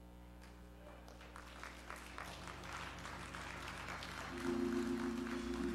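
Church congregation clapping and stirring as they rise to their feet, the claps growing denser after about a second. Soft sustained instrumental chords play underneath, and louder chords come in about four seconds in.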